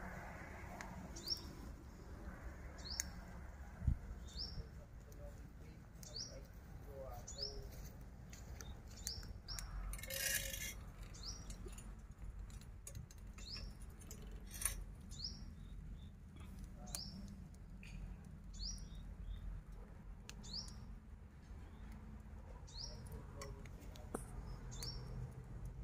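A bird repeats a short high chirp about every second and a half, over a low background rumble. There is a low thump about four seconds in and a brief hiss near the middle.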